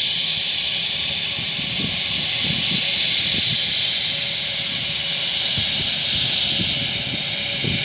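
Steady high-pitched hiss and whine of a distant Airbus A320's twin jet engines as the airliner lines up on the runway, with an uneven low rumble underneath.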